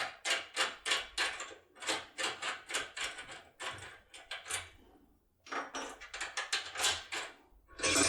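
ISEO R50/R11 foil impression tool rattling and clicking in a lock cylinder as it is rocked back and forth under tension: rapid metallic clicks, several a second, with a short pause a little past halfway.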